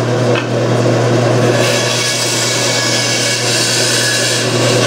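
A bandsaw motor running with a steady hum. About a second and a half in, the blade starts cutting into a wooden board with a rasping hiss, feeding straight in to make a relief cut.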